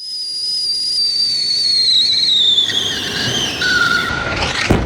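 A high, clear whistle sliding steadily down in pitch for about three and a half seconds, then a swelling rush of noise that ends in a sudden blast just before the end.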